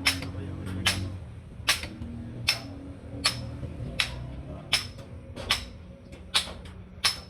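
Hammer striking metal in a steady rhythm, about ten blows roughly 0.8 s apart, each with a short metallic ring; this is workshop hammering on truck leaf-spring parts.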